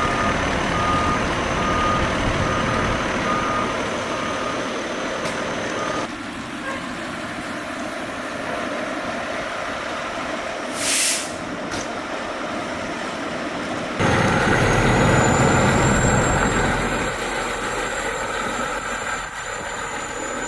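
Heavy truck backing up, its reversing alarm beeping steadily over engine noise for the first few seconds. A short air-brake hiss comes near the middle, and a louder diesel engine runs toward the end.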